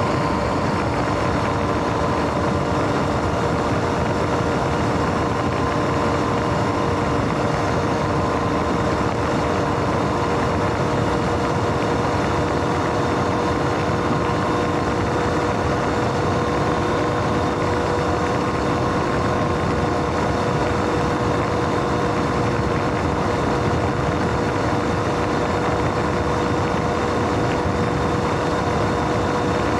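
Sur-Ron X electric dirt bike riding at a steady speed: a constant motor whine over an even rush of noise, holding the same pitch throughout.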